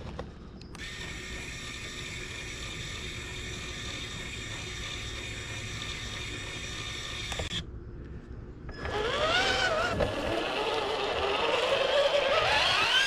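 RC tow truck's electric motor and drivetrain gears whining. The whine holds a steady pitch for several seconds, stops, and returns louder about nine seconds in, rising and falling with the throttle.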